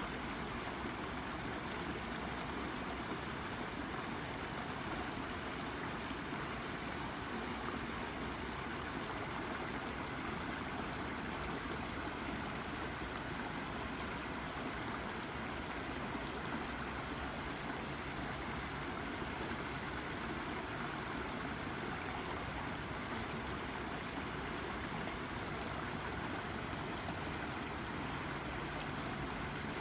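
Brook babbling steadily over and around a rock, an even rush of water with small trickling and gurgling.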